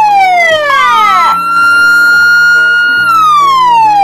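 Siren-like electronic wail sweeping down in pitch, briefly rising, then falling again, over background music with a stepping bass line. About a second in, a swooping glide rises to a high tone that holds for about two seconds before falling away.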